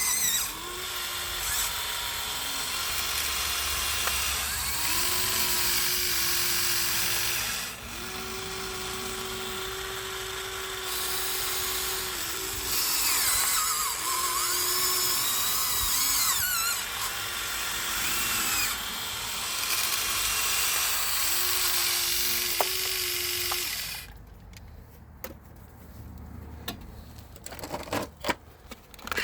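Huina 1593 RC excavator's small electric motors and gearboxes whining in on-and-off spells of one to a few seconds as the machine digs and slews, with a steady high hiss behind. Near the end the motors fall silent, leaving only a few light clicks and rattles.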